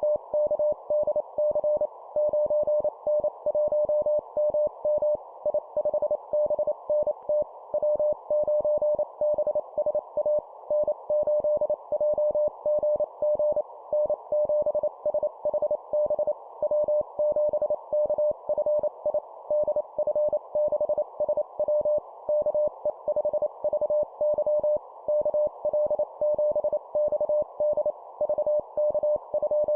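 Morse code (CW) practice tone sending amateur radio call signs at 25 words per minute: a single mid-pitched tone keyed on and off in rapid dots and dashes, over a steady band of hiss.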